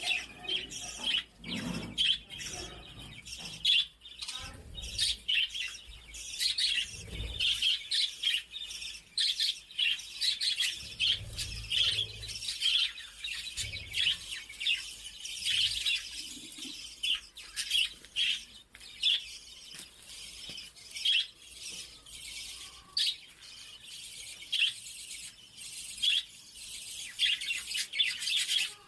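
Small birds chirping rapidly and continuously, with many short high calls. A few soft low thuds sound in the first half.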